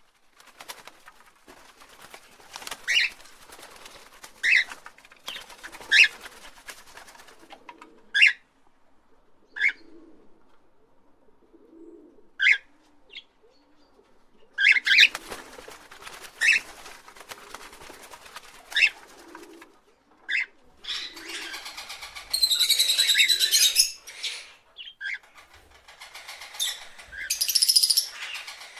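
Parrots calling: single sharp squawks every second or two, then two longer, louder bursts of harsh chatter near the end.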